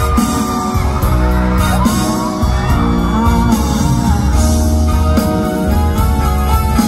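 Live band music with a male singer: heavy bass and drums under sustained guitar or keyboard notes, loud and continuous.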